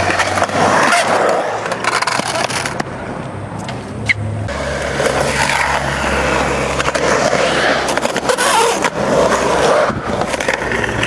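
Skateboard wheels rolling loudly on a concrete quarter pipe, with the board's trucks scraping along the metal coping at the lip. A sharp click comes about four seconds in.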